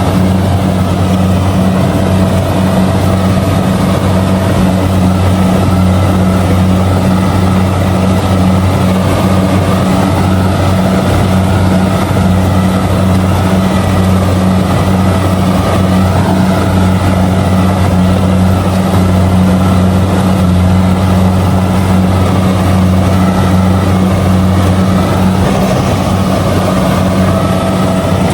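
Kubota DC70G combine harvester's diesel engine running steadily at a constant speed while harvesting rice.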